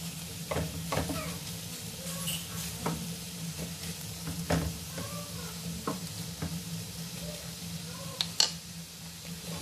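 Raw chicken pieces sizzling in hot oil in a nonstick frying pan while a wooden spatula stirs them, scraping against the pan now and then. A sharper knock comes near the end.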